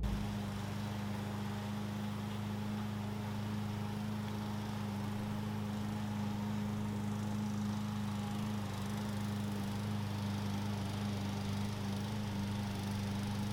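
Lawn mower engine running steadily at an even speed, a constant hum with no revving.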